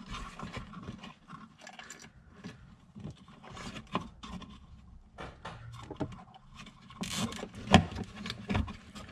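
Hands working zip ties around a plastic LED controller box on a wiring harness: irregular small clicks, scrapes and rubs as the ties are threaded and pulled, with one sharper click near the end.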